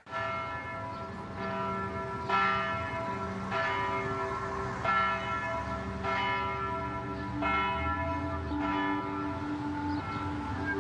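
Church bells ringing, a new stroke about every second and a quarter, each stroke ringing on under the next.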